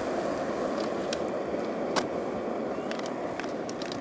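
Skateboard wheels rolling over rough asphalt: a steady grinding rumble, with a few faint clicks, the clearest about two seconds in.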